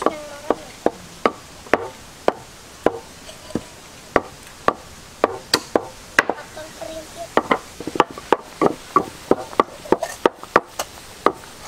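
A knife chopping food on a cutting board, one sharp strike about every half second, coming faster and closer together in the second half.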